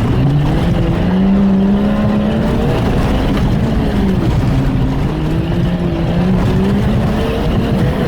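Jeep Cherokee XJ engine revving hard under load, its pitch rising and falling again and again as the Jeep is pushed at a trail obstacle.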